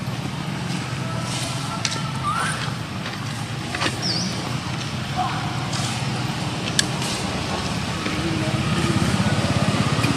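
Outdoor ambience: a steady low hum of distant traffic and voices, with a few sharp clicks and a couple of brief high chirps.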